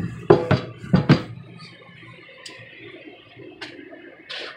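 Removable countertop sink-cover piece handled over a stainless steel sink, with four sharp knocks in the first second and a half, then quieter handling sounds and a few short scuffs near the end.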